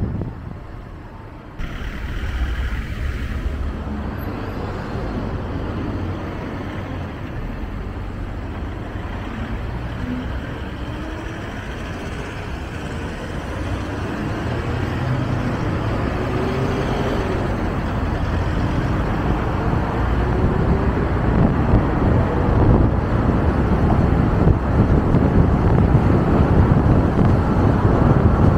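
Road and wind noise of a car driving, a steady rush with a low rumble. It jumps up about a second and a half in and grows gradually louder over the second half.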